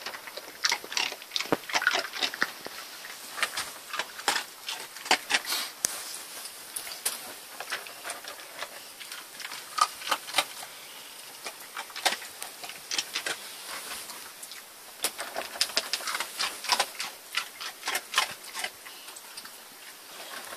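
A Jack Russell terrier crunching dry kibble: irregular sharp crunches in clusters, with short pauses between.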